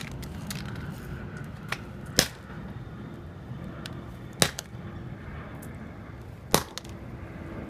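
Three hard blows striking a phone, evenly spaced about two seconds apart, smashing it until its screen is shattered.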